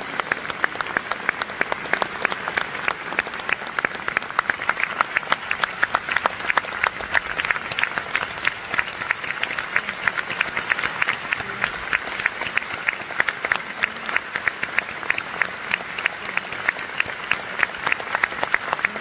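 Sustained applause from a concert hall audience: a dense, steady patter of many hands, with individual claps close by standing out sharply.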